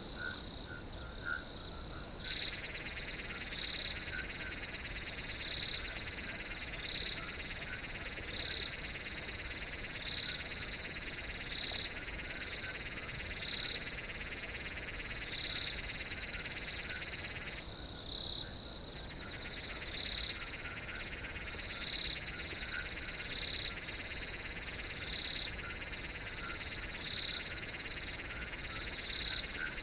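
Night field chorus of crickets: a steady high trill with a louder chirp repeating about once a second. A lower continuous buzz joins about two seconds in and stops briefly a little past halfway.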